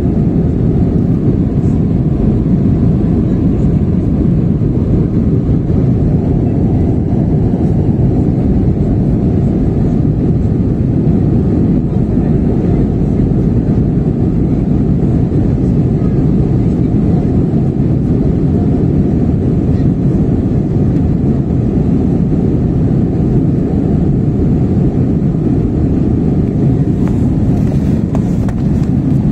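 Steady cabin noise inside an Airbus A320-family jet airliner climbing after takeoff: the deep, even rush of the jet engines and airflow, heard from a window seat over the wing.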